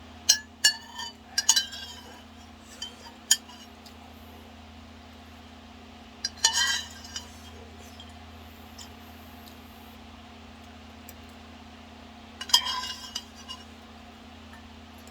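Metal eating utensils clinking against a bowl of ramyeon in sharp clusters: a quick run of clinks at the start, single ones a few seconds in, and two busier bursts of clattering about halfway and near the end. A steady low electrical hum runs underneath.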